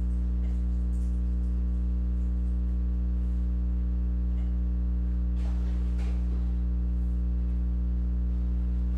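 Steady electrical mains hum with a stack of buzzing overtones, the loudest thing throughout, and a brief rustle about five and a half seconds in.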